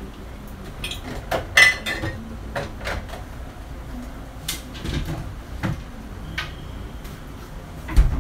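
Kitchen clatter: dishes, pans and utensils clinking and knocking in a string of separate strikes. The loudest clink, about one and a half seconds in, rings briefly, and a duller knock comes near the end.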